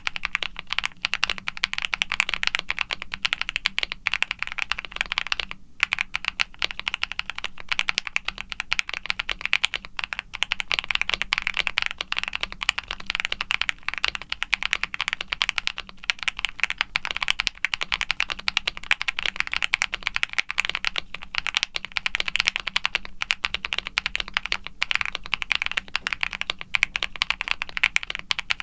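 Continuous fast typing on a CreateKeebs Luminkey75 aluminum mechanical keyboard. It has lubed Akko Creamy Lavender Pro tactile switches on a polycarbonate plate, full foam dampening and GMK doubleshot ABS keycaps. The keystrokes pause briefly about six seconds in.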